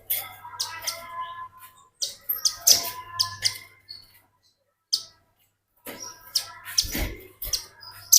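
Velvet-fronted nuthatch calling: bursts of sharp, rapid chirps in short phrases separated by brief pauses.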